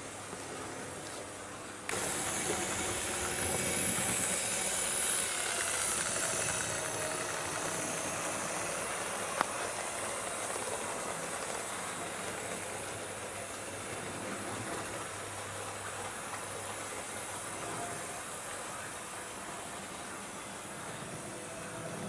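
Steam-locomotive hiss from the digital sound of an HO-scale model BR 78 steam tank locomotive. It comes on suddenly about two seconds in and slowly fades over the steady running noise of the model train on the track. There is one sharp click about nine seconds in.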